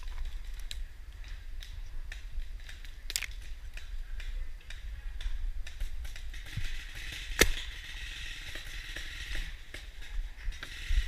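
Paintball markers popping in scattered shots across the field, with two sharper cracks about three and seven seconds in, over a steady low rumble on the microphone.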